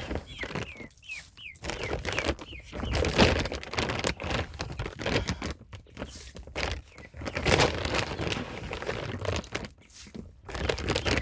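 A few short, high, falling chick peeps in the first couple of seconds, then irregular rustling and crinkling that comes in louder spurts, the sound of feed or a bag being handled among the chicks.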